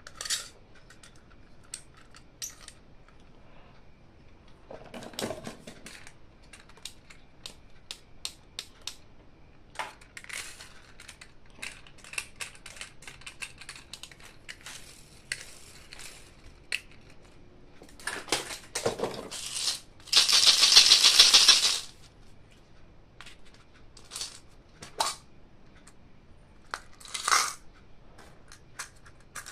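Toy packaging being unboxed by hand: scattered small clicks, taps and rustles of plastic and cardboard, with one loud rush of noise lasting about a second and a half about two-thirds of the way through.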